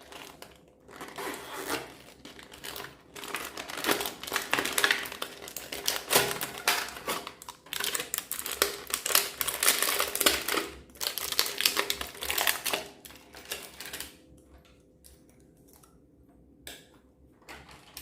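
Slime being kneaded and squished by hand, making rapid wet crackling and popping clicks in dense bursts for most of the time, thinning out to a few single pops near the end.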